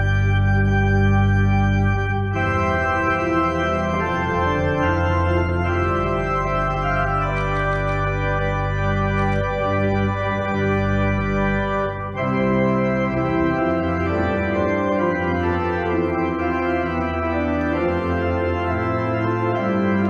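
Organ playing slow, sustained chords that change every few seconds: processional music for the bride walking down the aisle.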